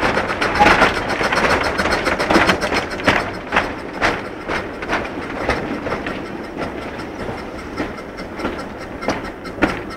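Narrow-gauge slate wagons rolling behind a small steam locomotive, their wheels clicking and knocking over rail joints and points with a loose, irregular clatter. The sound grows gradually quieter.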